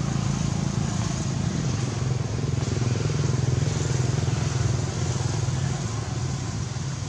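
A steady low motor drone, like an engine running nearby, over a constant background hiss.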